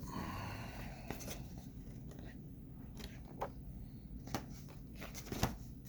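Pages of a book being handled and turned: a few short rustles and soft taps, scattered over a low, steady background hum.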